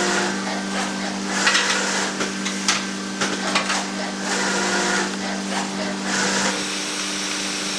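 Filotec CNC scoring machine moving a copper-clad circuit board panel on its loading arm. Over a steady hum there are short hisses about one and a half, four and a half and six and a half seconds in, with scattered clicks.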